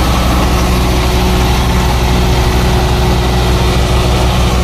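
John Deere 5310 tractor's diesel engine running steadily with an even low throb.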